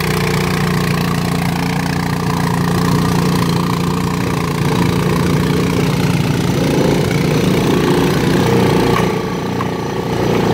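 Two small engines running under load on a hill climb: the Honda Big Red ATV's engine close by and a go-kart's small single-cylinder engine held at full throttle ahead, its pitch rising partway through. The go-kart's engine is revving against a slipping centrifugal clutch, which the rider calls a wet clutch.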